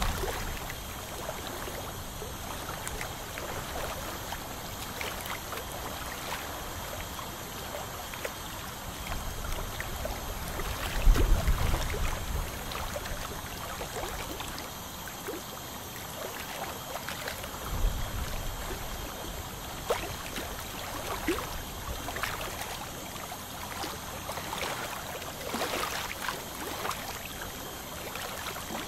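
Dental suction hissing and gurgling steadily while a hooked hand scaler scrapes black tartar off the teeth in many small scratchy clicks. Two dull bumps come through, one about a third of the way in and one past the middle.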